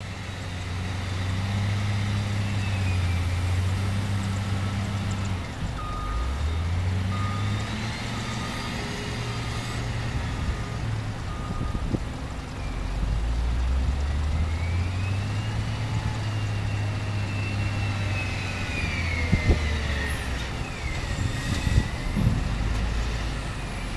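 Caterpillar 950 wheel loader's diesel engine revving up and down as it works, loading sand. A reversing alarm beeps about once a second for several seconds in the first half, a high whine glides up and down later, and a few sharp knocks come near the end.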